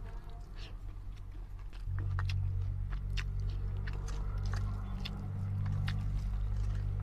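Close chewing and wet mouth smacks of a man eating rice and black chickpea curry by hand, with many short sharp clicks. A steady low hum gets louder about two seconds in.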